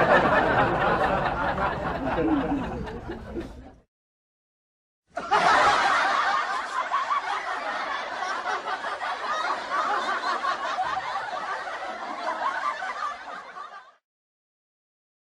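Canned studio-audience laughter fading out, then after about a second of silence a second laugh track of many people laughing together, which fades out near the end.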